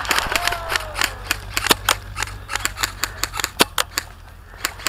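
Airsoft guns firing a rapid, irregular string of sharp single shots, some louder and closer than others, thinning out near the end.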